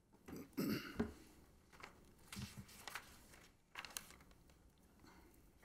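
Faint rustling and handling noises: a few soft bumps and rustles, the loudest about half a second to a second in, with smaller ones later.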